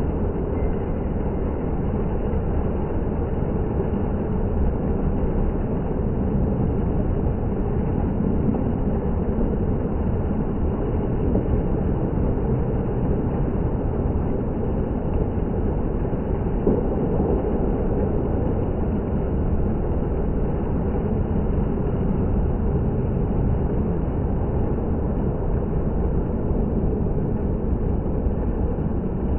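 Water fountain running, a steady unbroken rush of falling and splashing water.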